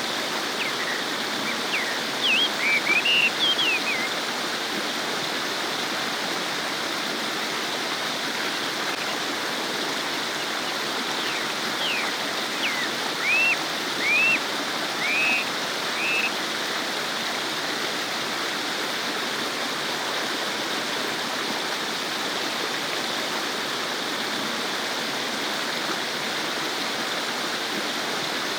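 Stream babbling steadily. Over it a bird gives short curved chirps in two brief clusters, near the start and again about halfway through.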